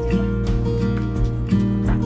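Background instrumental music, sustained notes changing every fraction of a second.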